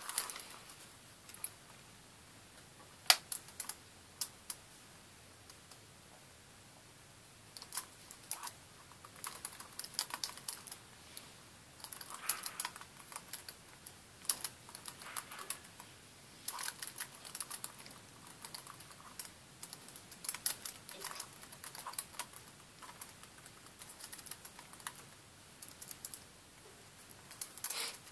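Computer keyboard being typed on in uneven bursts of keystrokes, with a pause of about three seconds a few seconds in. The loudest sound is a single sharp keystroke about three seconds in.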